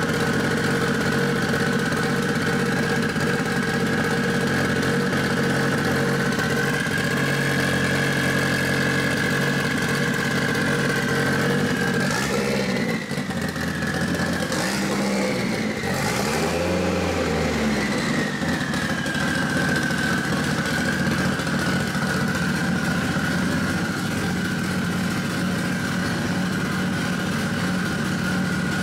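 Freshly rebuilt turbocharged 4G63 inline-four of a Mitsubishi Lancer Evolution VIII idling steadily just after its first start-up. About halfway through, the engine speed rises briefly and settles back to idle.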